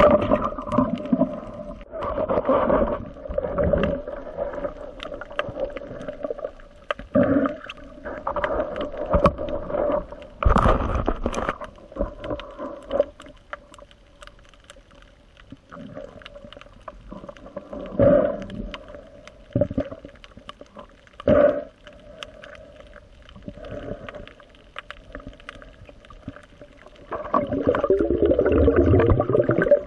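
Underwater, a Cressi MVD roller speargun fires with a sudden loud thud at the very start. Then come irregular bursts of water noise and bubbling from the diver's movements over a faint steady hum, and a longer rumbling surge of water noise near the end.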